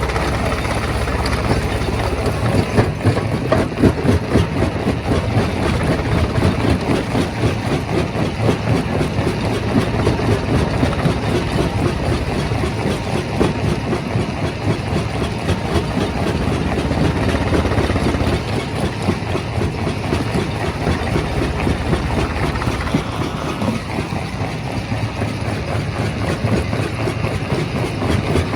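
Primary rock crusher running: a steady low mechanical drone with continuous dense rattling and clatter.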